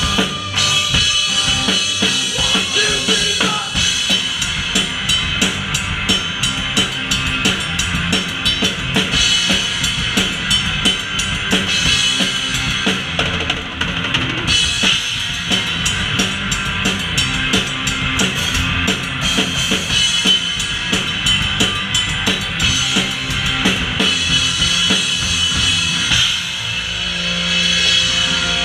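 Rock band playing live, heard from a camera at the drum kit: the drums are loudest, with kick and snare keeping a steady driving beat and cymbals over the bass and electric guitar.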